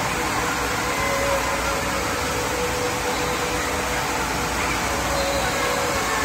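Steady rush of water churning in a raft slide's splash-down runout pool, an even noise that holds throughout.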